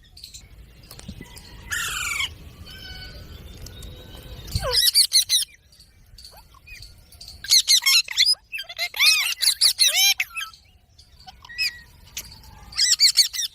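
Indian ringneck parakeet calling with harsh, repeated squawks in bursts: one around two seconds in, a short cluster about five seconds in, a longer run of calls in the middle, and another short burst near the end. A low rumble sits under the first few seconds and cuts off suddenly.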